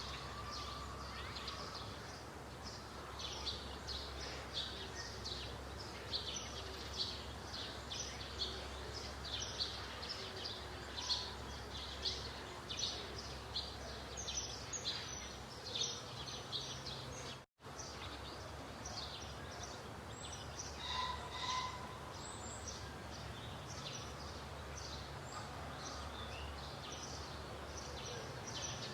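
Many short high-pitched chirps, about two a second, over a low steady hum, with a brief cut-out in the sound partway through.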